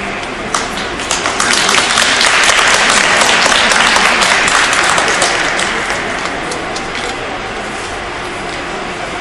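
A small audience applauding in an ice rink. The clapping builds about a second in and dies away after a few seconds.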